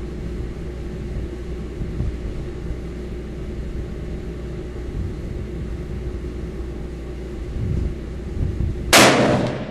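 A single rifle shot from a custom-built 7mm RHB rifle about nine seconds in: a sharp, loud crack that fades over about half a second. Before it there is only a steady low background rumble.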